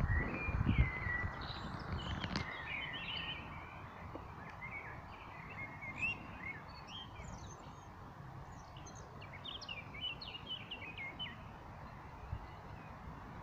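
Small songbirds singing in the trees: a steady run of short chirps and warbled phrases over a soft background hiss. A low rumble sits under the song for the first two seconds or so.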